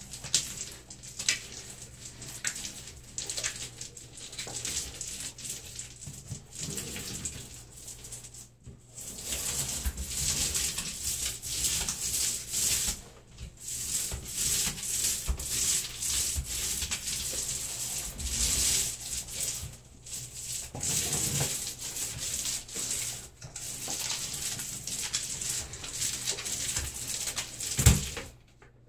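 Paint roller spreading wallpaper paste on a wall: a wet hiss in long rolling strokes, broken by short pauses between passes. A sharp knock comes near the end.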